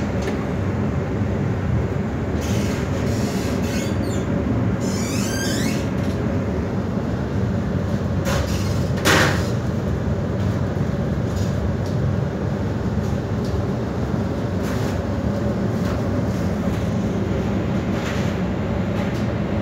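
Steady running noise of machinery, with a cluster of short high squeaks a few seconds in and a single sharp knock about nine seconds in.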